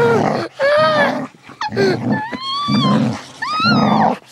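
A small fluffy dog growling and snarling in rough play, in short harsh bursts, mixed with several drawn-out high-pitched squealing cries that rise and fall.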